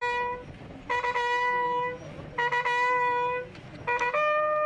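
Military bugle sounding a salute to a guard of honour presenting arms. It plays phrases of a few quick tongued notes, each leading into a long held note, three times over, then steps up to a higher held note about four seconds in.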